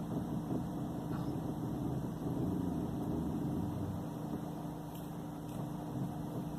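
Ford New Fiesta running, a steady mechanical hum with a constant low tone and no sharp knocks or clicks.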